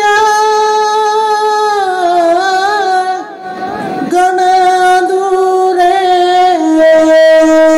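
A boy singing into a microphone in long held notes: a first phrase that wavers and slides down, a short break about three seconds in, then a second phrase that steps down to a long, low held note near the end.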